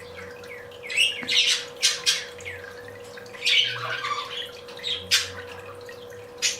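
Budgerigars squawking in short, harsh bursts, about seven calls in a few seconds: squabbling at a cage as one bird bites at the newcomer's feet.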